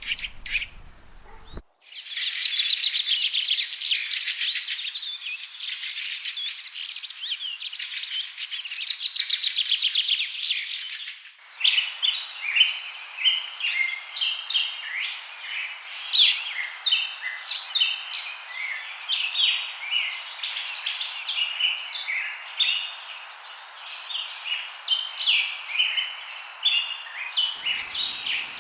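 Songbird lure recordings of chirping and song, with several clips edited together. The sound changes abruptly near the start and again about eleven seconds in: first a dense, rapid twittering, then a varied song of short, high chirped notes.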